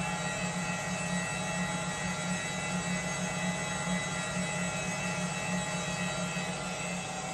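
Jones & Shipman 1077 hydraulic cylindrical grinder running: a steady machine hum with a strong low drone and several steady higher tones over it.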